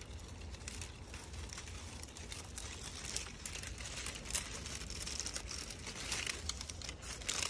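Rustling and crinkling of a grape cluster with shrivelled, raisined berries being handled among vine leaves and netting, with many small crackles, over a steady low rumble.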